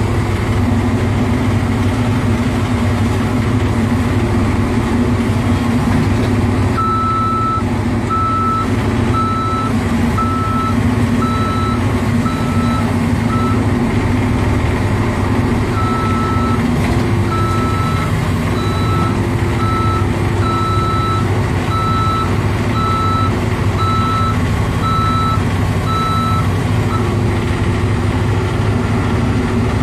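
CAT mini excavator's diesel engine running steadily as it tracks up a steep loading ramp. Its travel alarm beeps about one and a half times a second from about seven seconds in, pauses briefly midway, and stops a few seconds before the end.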